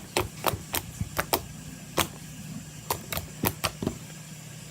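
Fingers poking fluffy shaving-cream slime, giving a string of about a dozen sharp, irregular clicks and pops as trapped air bubbles burst.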